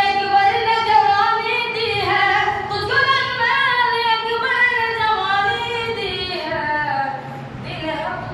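A boy singing unaccompanied into a microphone, holding long melodic notes that bend and glide in pitch.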